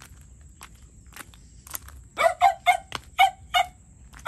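Footsteps crunching on a gravel path at a walking pace. About halfway through, an animal gives six short, sharp calls in quick succession, the loudest sound here.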